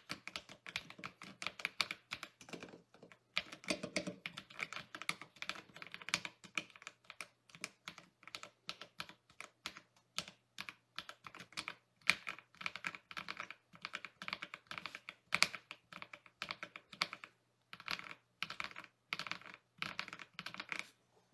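Typing sound test on a mechanical keyboard fitted with Akko CS Matcha Green linear switches under PBT keycaps: a rapid stream of keystroke clacks in runs separated by short pauses.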